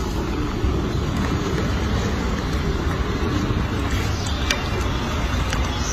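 Steady low background rumble, with a few faint clicks about four to five seconds in.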